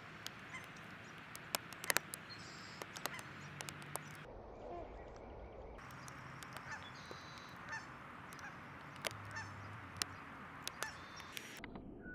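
Wild birds at a backyard feeding spot: scattered short chirps mixed with many sharp clicks over a faint low hum, with the background changing abruptly a few times.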